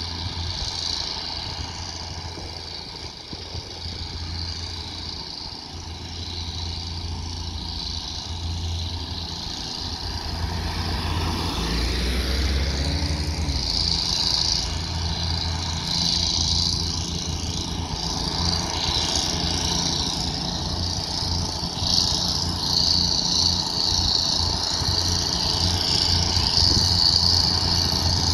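Diesel switcher locomotive's engine running as it comes slowly closer, a steady low hum growing gradually louder, with a high hiss over it that is strongest near the end.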